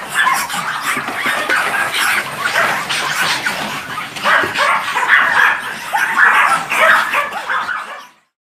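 Many long-haired Chihuahuas barking and yipping over one another at once, a dense chorus of small dogs; it cuts off suddenly shortly before the end.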